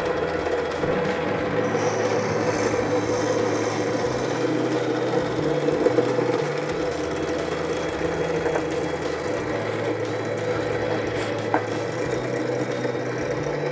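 Benchtop drill press running, its bit boring holes into plywood, with a steady motor sound and wood-cutting noise, and a short sharp click near the end.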